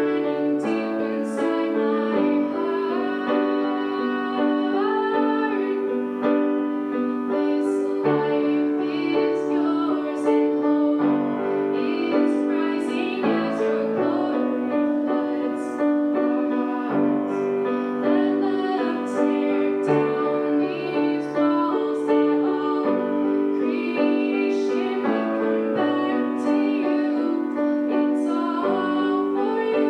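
Piano playing a slow worship song in sustained chords, with a woman singing over it.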